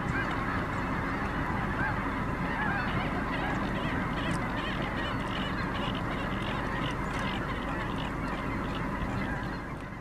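A huge flock of snow geese honking in flight, a dense chorus of countless overlapping calls that fades out near the end.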